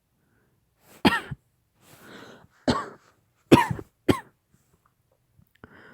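A woman coughing hard: four harsh coughs over about three seconds, the last one short, with a breath drawn in after the first. It is an acted, lingering post-COVID cough.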